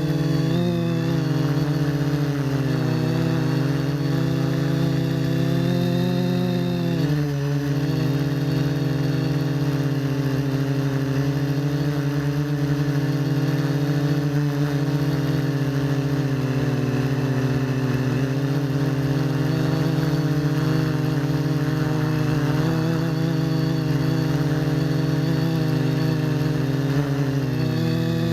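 Electric motors and propellers of an RC FPV quadcopter whirring steadily in flight, their pitch shifting as the throttle changes, with a dip about seven seconds in.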